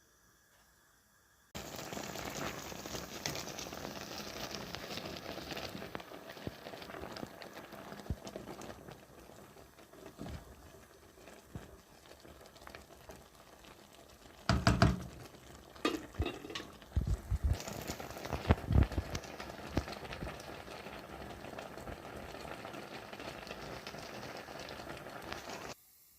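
Food frying in oil in a pan: a steady sizzle that starts and cuts off abruptly, with a cluster of loud knocks and clatters about halfway through.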